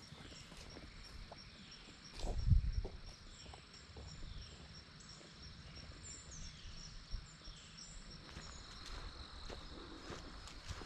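Woodland ambience of crickets trilling steadily in a high, even pulse, with a bird calling in short falling notes repeated about once a second. A short low rumble about two and a half seconds in is the loudest sound.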